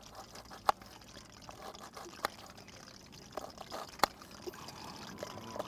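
Kitchen knife chopping a red onion on a metal tray: a few irregular sharp taps as the blade strikes the tray, three loudest about a second, two seconds and four seconds in, over a faint steady hiss.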